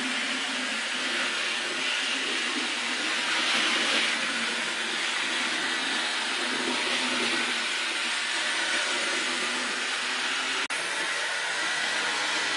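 Rivarossi HO-scale 4-6-2 Pacific model steam locomotive running on the track: a steady hissing whir from its electric motor, gears and wheels on the rails. The sound drops out for an instant near the end.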